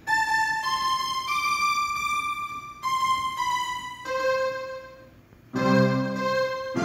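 Casio electronic keyboard played through an ION PA speaker: a slow melody of single held notes, joined by fuller chords with low bass notes about five and a half seconds in.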